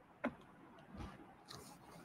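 A single sharp click about a quarter of a second in, then a softer low bump about a second in, over faint room noise.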